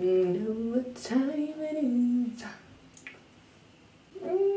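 A woman singing to herself in a small room, with held notes that slide from pitch to pitch. She breaks off for about a second and a half midway, then starts a long held note near the end.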